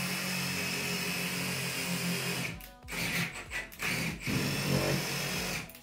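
Cordless drill/driver running: one steady run of about two and a half seconds, then several short bursts.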